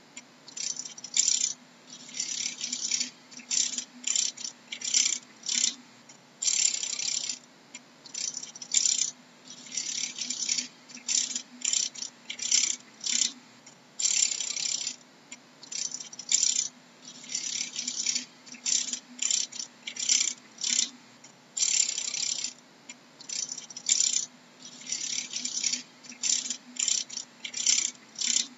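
Dragonfly wings rattling in irregular short, dry bursts, about one to two a second, over a faint steady low hum.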